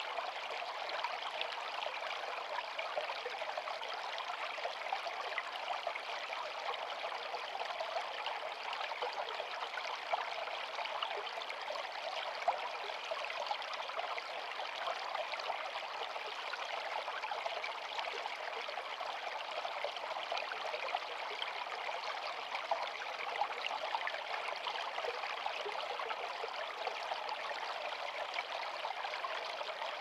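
Small shallow stream running over stones, a steady trickling and splashing of water heard close to the surface.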